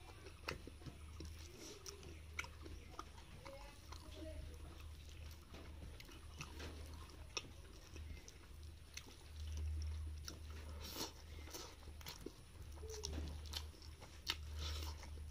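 Close-up eating sounds of rice and pork curry eaten by hand: moist chewing with many small mouth clicks and smacks, and fingers squishing rice against a steel plate. A steady low hum runs underneath.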